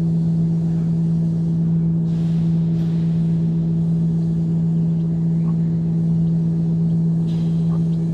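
A steady low hum on one unchanging pitch, with its overtone, loud throughout. Now and then a few faint short sounds come through above it.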